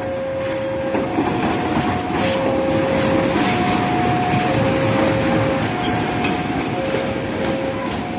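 A KAI CC201 diesel-electric locomotive running past with a baggage car during a shunting move, its engine running and its wheels rolling over the rails, growing louder about a second in. Over it, a level-crossing warning alarm sounds, switching back and forth between two tones, each held about a second.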